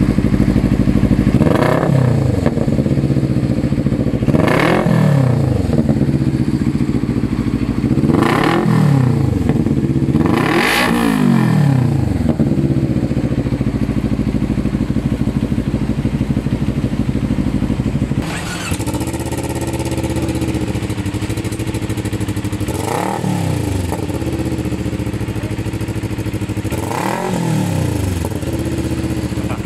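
Two-cylinder motorcycle engine breathing through a new aftermarket Villain exhaust, idling and blipped six times in short rev bursts. There is a longer stretch of plain idle in the middle.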